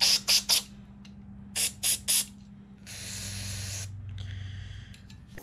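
Aerosol carburetor cleaner sprayed through a thin straw into a small-engine carburetor's passages to blow out clogged jets and ports. It comes as three short bursts, three more about a second and a half later, then one longer spray of about a second and a fainter hiss near the end.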